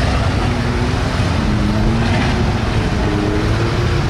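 Big off-road truck engines running and revving over a steady low rumble, their pitch rising and falling.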